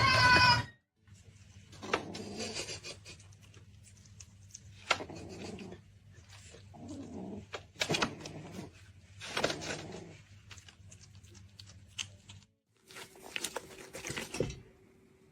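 A pet animal's vocal sounds and breaths in several short, rough bouts over a steady low hum, opening with a loud, short pitched call that cuts off within the first second.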